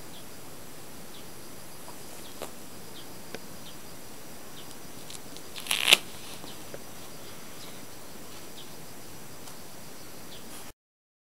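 Siamese kitten batting and rolling a wax candle on a tatami mat: scattered light taps and rustles over a steady hiss, with a louder scuffling clatter about six seconds in. The sound stops abruptly near the end.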